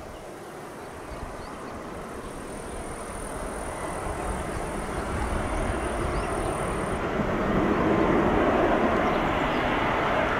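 Boeing 787 jet airliner on final approach with its gear down, its engine noise a steady rushing roar that swells steadily louder as it nears overhead.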